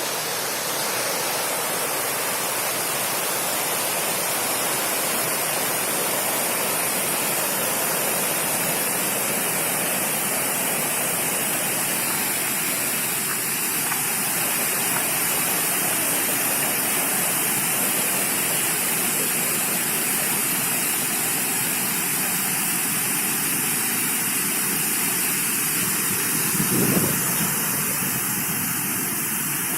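Waterfall: a steady rush and hiss of falling water, unbroken throughout, with one brief low thump near the end.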